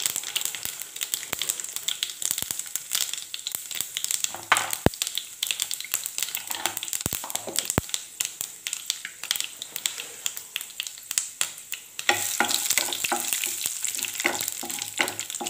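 Mustard seeds and urad dal frying in hot coconut oil with curry leaves: a steady sizzle full of sharp crackles and pops as the mustard seeds splutter, the tempering stage of the dish. The sizzle thickens and grows louder about twelve seconds in.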